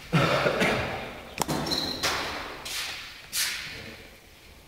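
Rocks thrown hard into a corner of a bare tiled room, about six sharp thuds over three seconds, each echoing off the walls.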